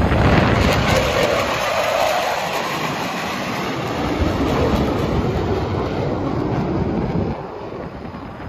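Fighter jet flying past, a loud rushing engine roar that slowly fades as it moves away and drops off further about seven seconds in.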